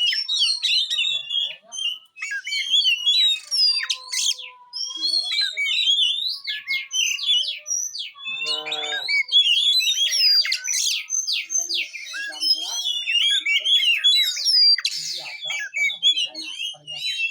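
Oriental magpie-robin (kacer) singing a fast, unbroken run of varied whistles, chirps and sweeping notes in the rapid 'rolltembak' style. About halfway through there is one brief, lower, harsher note.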